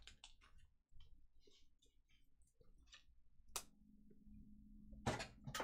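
Faint clicks and light handling noises as a trading card and its foam insert are picked up off a mat. A sharper click comes about three and a half seconds in, and a louder knock near the end.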